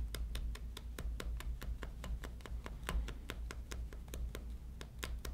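A small comb raking quickly through spun rabbit-fur dubbing on a fly in a vise, in light, even strokes of about six a second.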